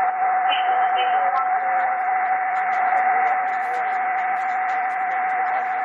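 Amateur HF radio receiver on sideband: band hiss with a steady carrier whistle held at one pitch, between transmissions on the net.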